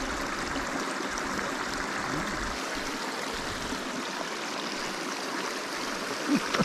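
Steady rushing of a stream flowing over rocks.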